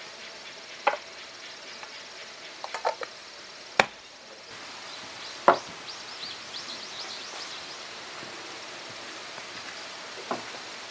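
Scattered sharp knocks of wood on wood: a single knock, a quick cluster of light taps, then a louder knock and a last lighter one, as a small wooden door frame and board are handled. A run of faint high chirps sounds in the middle.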